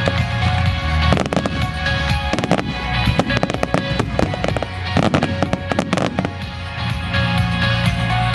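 Starmine fireworks barrage: many shells bursting in quick succession with bangs and crackles, from about a second in until shortly before the end, over music played with the show.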